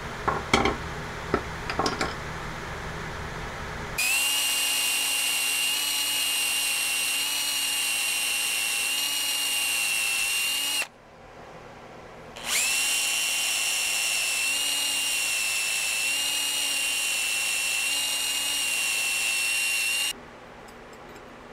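A few light knocks of tools being handled, then an electric drill runs twice at a steady speed for about seven seconds each time, with a short pause between, boring into a wooden handle blank.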